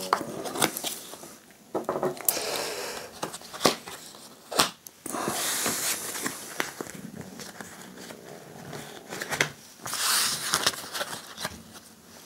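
Playing cards of a 32-card deck being handled and laid out on a table mat: sharp card snaps scattered through, with two longer sliding swishes of cards across the mat in the middle and near the end.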